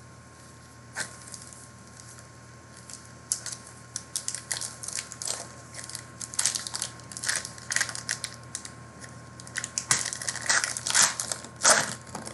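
Plastic wrapper of a trading-card pack crinkling and tearing as it is opened and handled: a dense run of crackles from about a second in, loudest near the end.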